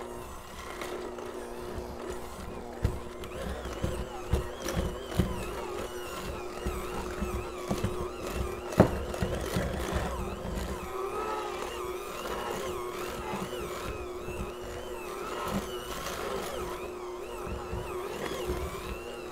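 Corded electric hand mixer running steadily, its beaters working stiff gingerbread cookie dough with the flour just added, with a few sharp knocks now and then, the loudest about nine seconds in.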